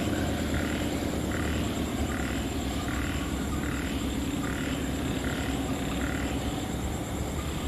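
Frogs calling at night, a short call repeating about every three-quarters of a second and stopping near the end, over a steady low hum.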